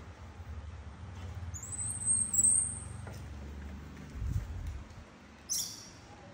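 Baby macaque giving a thin, high-pitched squeal that rises and holds for about a second, followed by a dull thump and, near the end, one short squeak, over a low steady hum.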